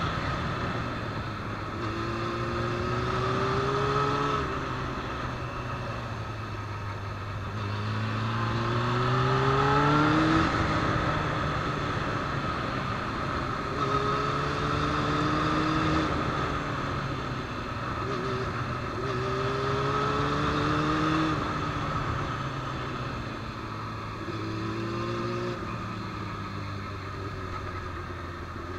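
Motorcycle engine accelerating and easing off through a run of corners, its pitch rising in about five separate climbs and falling back in between.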